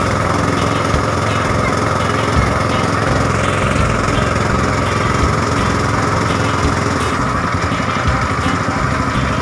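Small petrol engine of a power-sprayer pump running steadily, pushing disinfectant out through the spray hoses.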